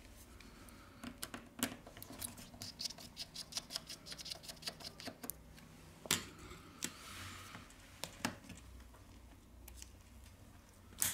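Light, rapid ticking and scraping of a precision screwdriver turning out the small screws in a phone's frame, followed by a few sharper clicks and taps of small metal tools against the phone.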